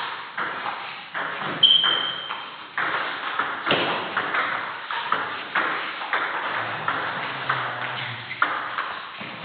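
Table tennis rally: the ball clicks sharply off the bats and the table, about two hits a second. There is a brief high squeak about a second and a half in.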